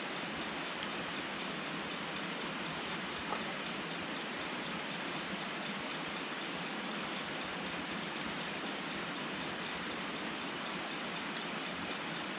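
Crickets trilling steadily in one continuous high chirr, over an even background hiss.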